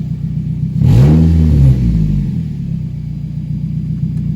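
2005 Nissan Altima engine idling through a leaking exhaust, blipped once about a second in so the pitch rises and falls back to idle within a second. The exhaust is loud because of a leak at the rear catalytic converter flange, where a stud nut has rusted away.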